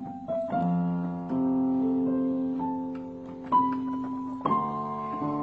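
Electronic keyboard playing slow, held chords, a new chord struck every second or so and each fading slightly as it is held.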